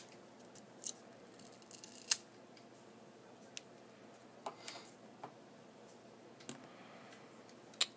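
Scattered small sharp clicks and brief scrapes of hand tools working on an iPhone 4's internal parts, with a louder click about two seconds in and another near the end.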